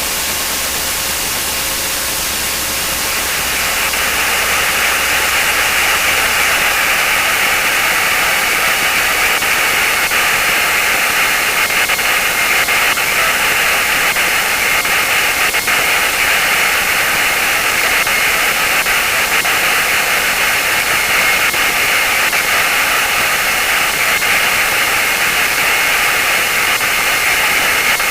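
Steady rushing cockpit noise of a Lancair Legacy light aircraft, its engine running, heard through the intercom audio feed. It rises slightly about three seconds in, then holds level.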